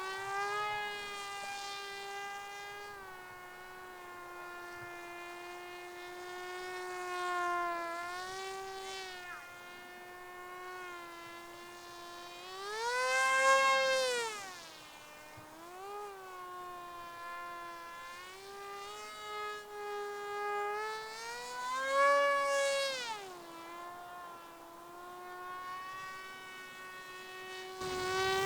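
Electric motor and propeller of a ZOHD Orbit Neon RC flying wing in flight, a steady buzzing whine. It rises in pitch and loudness briefly around 8 seconds in, then sharply twice as the throttle is opened, about 13 and 22 seconds in, before settling back.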